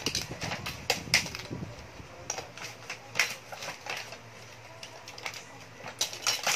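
Small hard plastic toy dishes and kitchen pieces knocking and clattering against each other as they are handled, with the crinkle of clear plastic packaging: irregular sharp clicks, a few in quick succession.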